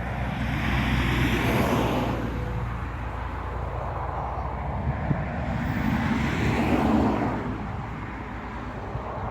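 Road traffic: two vehicles pass one after the other, each a rushing swell of tyre and engine noise over a low rumble, the first about a second in and the second about halfway through.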